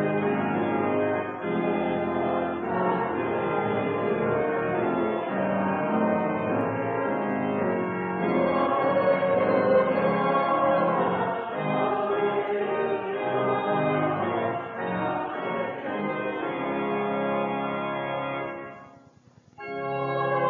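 Church organ music from a 1956 organ, full sustained chords moving from one to the next, breaking off for a moment near the end before the next phrase starts.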